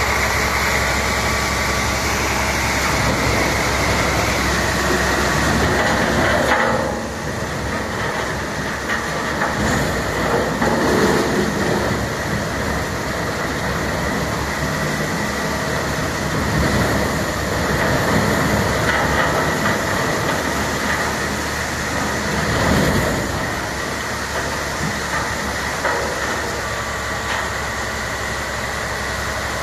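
Mobile tub grinder powered by a 550 hp diesel engine, running and grinding wood stumps: a loud, continuous rumbling, crunching din with a steady high whine, rising and falling as material is fed.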